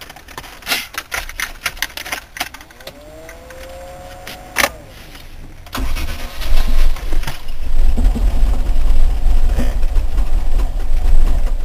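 Cold start of a classic Range Rover's petrol V8: a few clicks, a rising whine for about two seconds that ends in a click, then the engine catches about six seconds in and runs unevenly. It is firing on only a couple of cylinders because the distributor cap was left unclipped.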